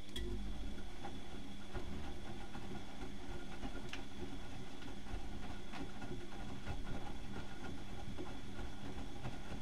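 Bauknecht WAK 6950 washing machine turning its drum during the wash: the motor starts with a click and runs with a steady hum over a low rumble, with small scattered clicks and knocks from the tumbling load.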